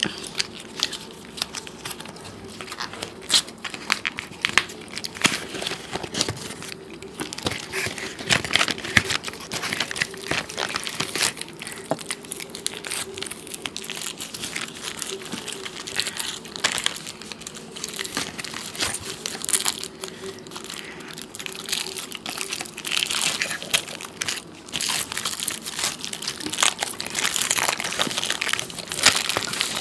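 Nestlé KitKat Dessert Delight bars being unwrapped by hand, their gold foil wrappers pulled out and peeled off: a dense run of crinkling and crackling, busier from about a quarter of the way in, over a faint steady hum.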